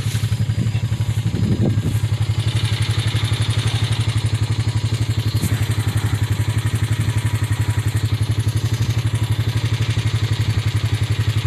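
An engine idling steadily: a low, even, rapid chugging that does not change.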